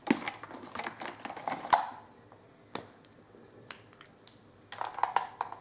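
Small clicks and rustling of make-up being handled: a bout of clicking and rustling at the start, a few single sharp clicks in the middle, and another short bout near the end.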